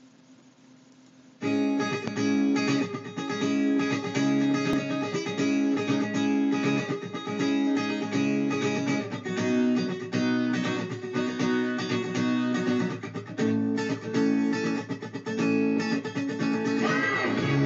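Music with plucked guitar, starting suddenly about a second and a half in after a faint low hum.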